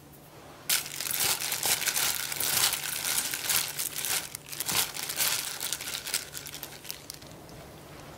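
Hands tossing and squeezing seasoned bean sprouts in a stainless steel bowl: a dense crinkly rustle of the crisp sprouts, starting about a second in and dying away near the end.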